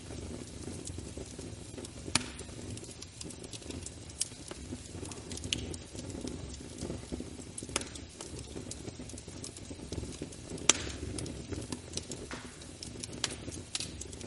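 Wood fire burning in a fireplace: a steady low rumble of flames with scattered sharp crackles and pops, the two loudest about two seconds in and again near eleven seconds.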